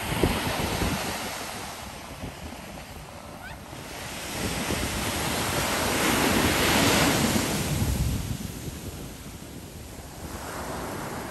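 Ocean surf breaking and washing up the sand, one surge swelling to its loudest about halfway through and then fading. Wind buffets the microphone, most at the start.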